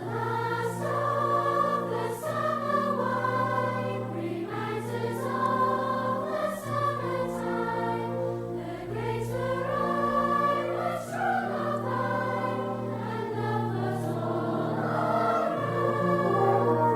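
Outro music: a choir singing sustained notes over a steady low accompaniment.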